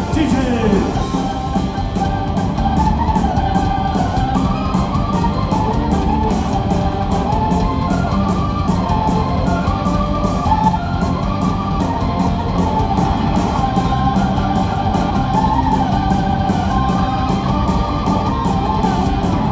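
Live rock band playing an instrumental passage: an electric guitar carries a melody over bass and a steady drum beat.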